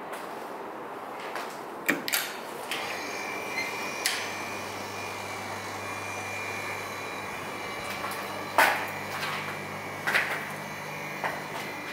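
Clicks and knocks from a lift's hinged stainless-steel landing door being unlatched and pulled open, with a steady low electric hum and a thin high whine from the lift setting in a few seconds in. Two sharper knocks come in the second half.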